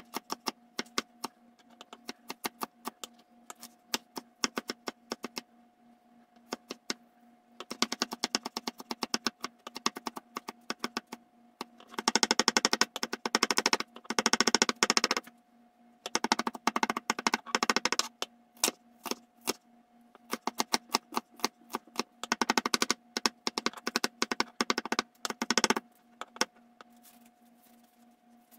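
Kitchen knife chopping red onion on a wooden cutting board: fast runs of knife taps lasting a few seconds each, with slower single cuts between them.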